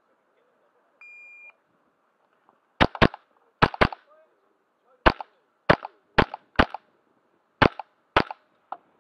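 A shot timer beeps once to start, then a Smith & Wesson AR15-22 .22 rimfire semi-automatic rifle fires ten quick shots, the first four as two fast pairs, with a faint click near the end.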